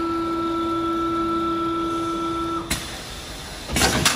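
Auto-feeding CNC wood lathe running with a steady two-tone motor whine that cuts off suddenly about two and a half seconds in, followed near the end by a short, loud burst of hissing.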